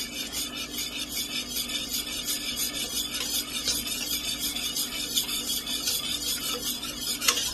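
Wire whisk scraping and swishing through warm yogurt in a stainless steel pot, in quick, continuous strokes.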